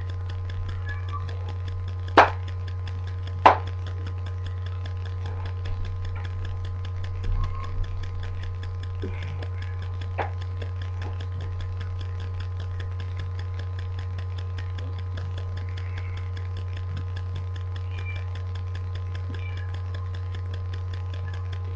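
Steady low electrical hum with faint steady tones above it, the background noise of a webcam recording. Two sharp clicks come about two and three and a half seconds in, with a few faint soft sounds a few seconds later.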